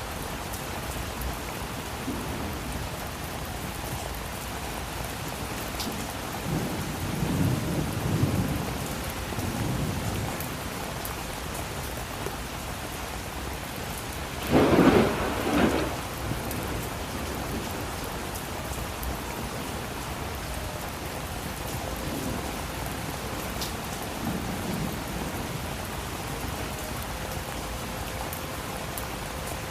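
Steady rain falling during a thunderstorm. Low thunder rumbles come about a quarter of the way in, a sharp loud thunderclap comes about halfway through, and fainter rumbles follow near the end.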